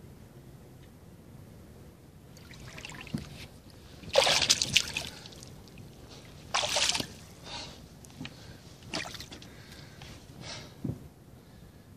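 Water splashing and sloshing around a large carp as it is let go by hand in shallow water, with the loudest splashes about four and six and a half seconds in, then a few smaller ones.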